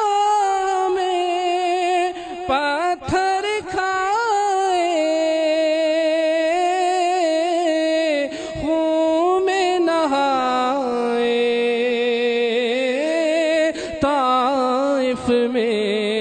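Unaccompanied male voices singing a naat: a long wordless passage of held, wavering melismatic notes, settling into steadier sustained tones in the second half.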